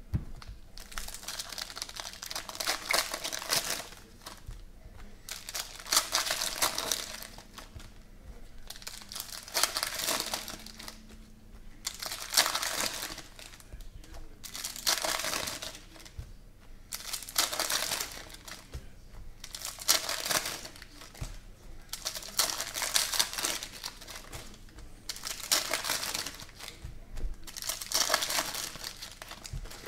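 Foil wrappers of 2017 Panini Prizm football card packs crinkling and tearing as the packs are ripped open by hand, in repeated bursts every two to three seconds, with quieter handling of the cards between.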